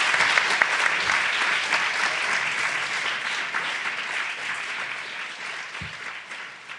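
Audience applauding at the end of a panel, the clapping fading away gradually.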